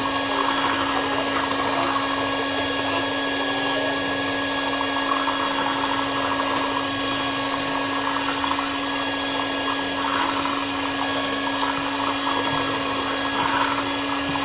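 Handheld electric blender running steadily in cold-process soap batter, a constant motor hum with one strong steady tone, mixing the batter.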